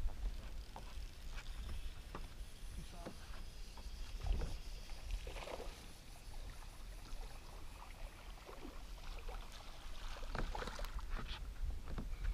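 Low rumble of wind on the microphone and water lapping against a bass boat's hull, with scattered light clicks and knocks from the fishing tackle. The clicks and knocks grow busier about ten seconds in as a hooked bass is reeled up and swung aboard.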